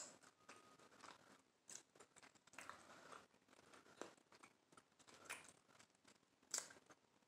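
Faint chewing of a mouthful of avocado toast, mouth closed, with a few brief louder mouth sounds now and then.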